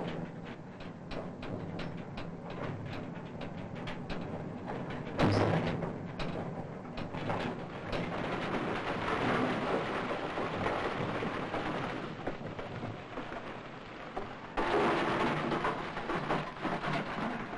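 Rumble and clatter of mine ore-handling machinery and broken rock. Sharp knocks come several to the second over the first few seconds, then a heavy crash about five seconds in, then a steady rushing rumble that surges louder near the end.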